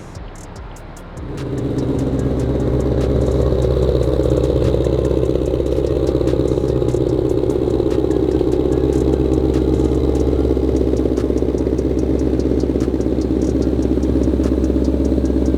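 Ford Shelby GT500's engine starts about a second in, then runs steadily at a low, even note.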